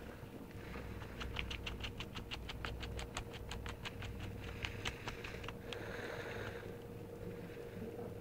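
A kitten play-fighting with a hand: a rapid run of light ticks, about five or six a second, for several seconds, then soft rustling, over a faint steady hum.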